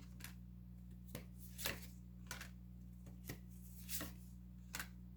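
Tarot cards being drawn and laid down on a table: a series of about seven soft, separate card slaps and flicks, spaced irregularly, over a faint steady low hum.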